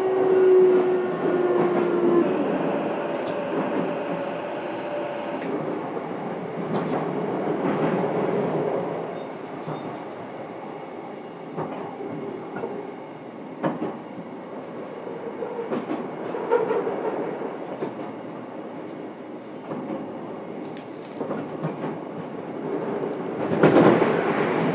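Onboard running sound of a JR East E233-7000 series EMU, heard inside a motor car: a steady traction-motor whine stops about two seconds in. After that, wheels rumble on the rails with repeated rail-joint clicks, and a louder rush comes near the end.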